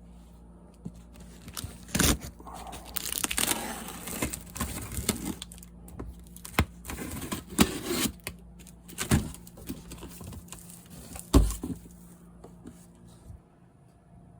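Cardboard case of firework cakes being torn open and unpacked: tearing and crinkling, with several sharp knocks, the loudest about eleven seconds in.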